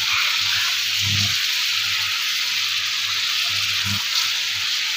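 Prawns sizzling steadily as they fry in oil in a pan, stirred with a spatula.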